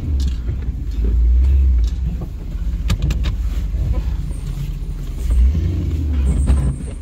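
Off-road vehicle engine running under load on rough terrain. It swells with throttle about a second in and again near the end, with a few sharp knocks in between.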